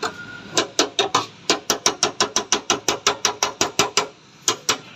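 Rapid metal-on-metal strokes of pliers working the end of a stove's gas pipe, about six a second, each a sharp click with a short ringing. They stop just before four seconds and come twice more shortly after.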